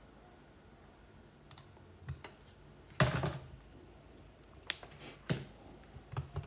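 A hand handling a printed sheet of paper on a desk mat: scattered light taps and clicks, with a louder brushing sound about three seconds in.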